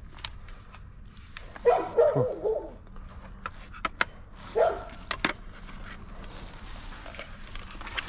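A dog barking: a quick run of barks about two seconds in and a single bark near the middle, with several sharp clicks and taps in between.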